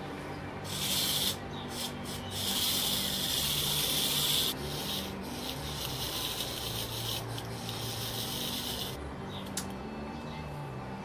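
Fingers rubbing and scraping on a Mayak clock movement's metal plates as it is handled: a loud stretch of about half a second near the start and a longer one of about two seconds soon after, then softer rubbing that dies away a couple of seconds before the end.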